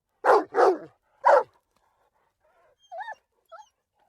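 Dog barking: three loud, sharp barks in quick succession, followed by two much fainter, higher calls that bend in pitch near the end.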